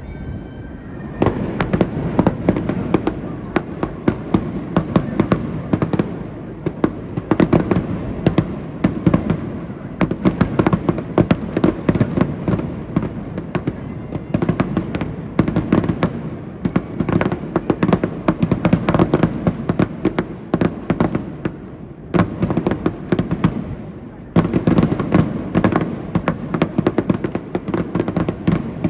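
Aerial fireworks going off in a dense barrage of rapid bangs and crackles, starting about a second in, with a short lull near the end.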